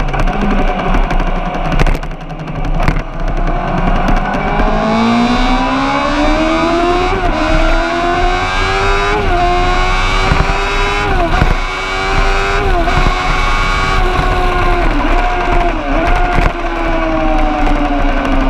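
Racing vehicle engine accelerating hard through several upshifts. The pitch climbs and drops briefly at each shift, then holds with two short dips before falling away near the end as it slows.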